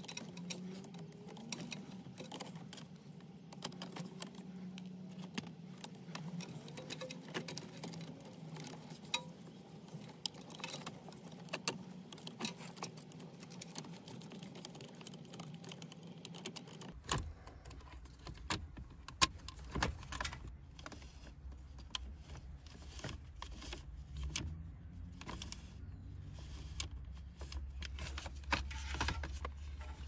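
Hard plastic clicks, taps and rattles as the Toyota Corolla's heater/AC control unit and knob housings are handled and fitted into the dashboard, over a low steady hum that drops lower about halfway through.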